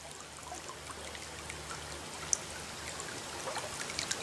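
Trickling, splashing water with scattered droplet ticks, fading in and growing slowly louder over a faint low hum.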